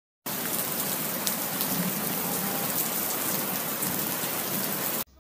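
Steady rain sound effect, a dense hiss of falling rain with fine drop patter. It starts abruptly and cuts off suddenly near the end.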